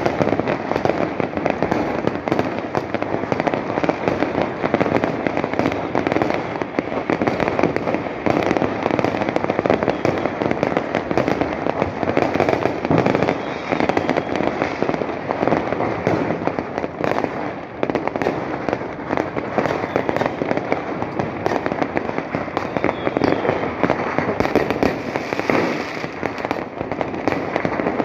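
Dense, unbroken barrage of fireworks and firecrackers: rapid pops and crackles running together without a break.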